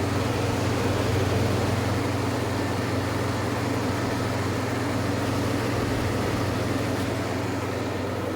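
1998 Kenmore 22,000 BTU window air conditioner running on high fan with the compressor cooling: a steady low hum under an even rush of blown air.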